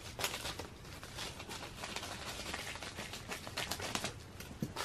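Packaging being handled: irregular light clicks, taps and rustling, with a quicker run of clicks a little before the end.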